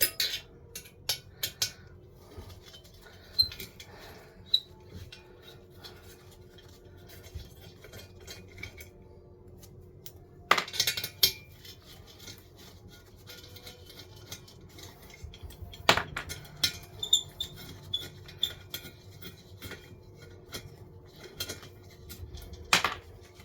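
Small metal clicks and clinks of an Allen key and M4 bolts being undone and lifted out of a diesel heater's burn chamber. There are scattered taps, with louder clattering bursts at about ten, sixteen and twenty-three seconds in.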